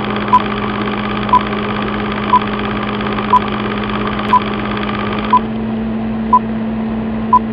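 Film-countdown sound effect: the steady whirr and hum of an old film projector running, with a short high beep once a second, eight beeps in all, ticking off the countdown numbers.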